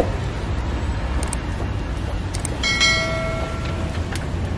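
Metal spatula clicking and scraping on a metal egg-bread mould plate, with one short metallic ring, about a second long, a little past halfway. A steady low hum of street traffic runs underneath.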